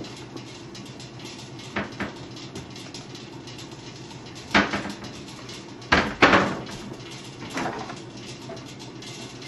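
Kitchen cupboard and refrigerator doors being opened and shut: a handful of short knocks and bumps, the loudest two in quick succession a little past the middle.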